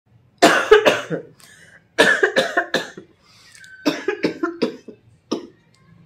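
A woman coughing repeatedly into her cupped hands, in four fits of several sharp coughs each, the last a single cough.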